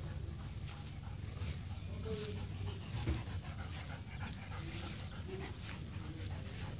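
Dogs panting, with a few faint short whimpers, the clearest about two and three seconds in.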